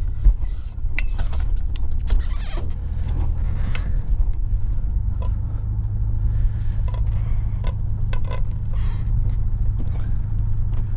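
Sailboat's inboard engine idling with a steady low rumble, while short knocks and clicks come from a boat hook and mooring line being handled at the bow.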